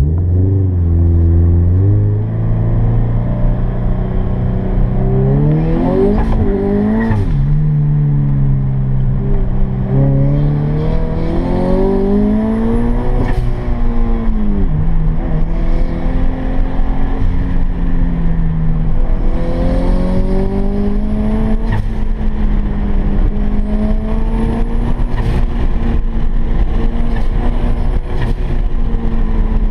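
Turbocharged Scion FR-S's flat-four engine driven hard around an autocross course, heard from inside the cabin: its pitch climbs under acceleration and falls back again and again as the driver shifts, lifts and brakes, with a faint high whistle near several of the peaks.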